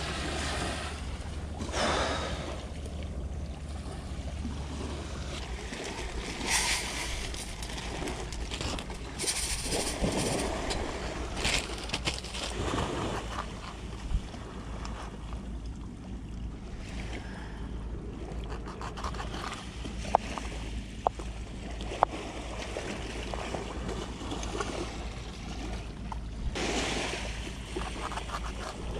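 Seashore ambience: waves washing and wind rumbling, with scattered handling noises and a few sharp clicks about two-thirds of the way through.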